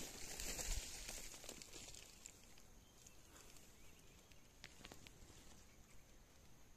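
Faint rustling of rice plants and footsteps walking through a rice field, busiest in the first second or so, then quiet with a few soft ticks, over a faint steady high hiss.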